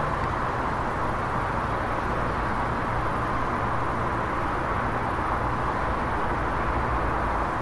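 Steady ambience of a car driving through a thunderstorm: an even hiss of rain and road noise over a low, constant rumble. The level stays flat with no sharp clap.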